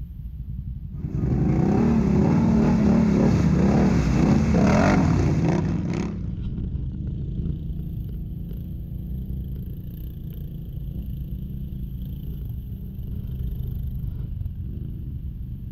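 An ATV engine running, revving hard with wavering pitch for about five seconds from a second in, then dropping back to a lower, steady run.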